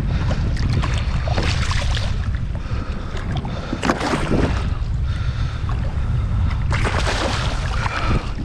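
Wind rumbling on the microphone on a fishing kayak at sea, with three bursts of splashing water about a second, four seconds and seven seconds in.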